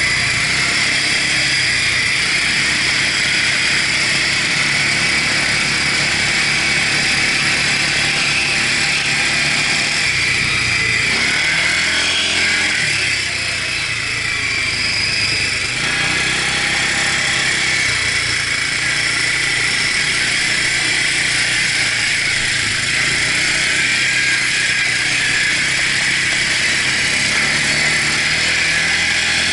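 Arctic Cat ATV engine running steadily under way across sand, heard close from the handlebars. About halfway through, the engine note drops briefly and then picks up again.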